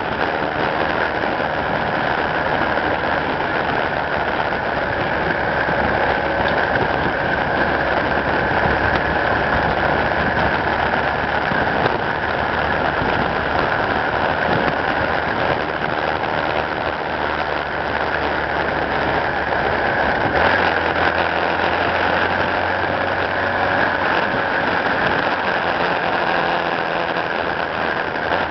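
Steady hum of a vehicle engine running at a constant pace, under a constant hiss of wind and tyre noise picked up from the moving vehicle. The low engine note shifts slightly about twenty seconds in.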